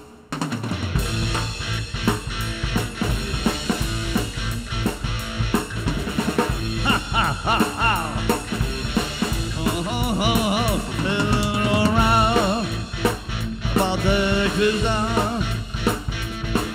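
Blues-rock band playing an instrumental stretch: electric guitar, bass guitar and drum kit, with the guitar playing bent, wavering lead notes from about halfway through.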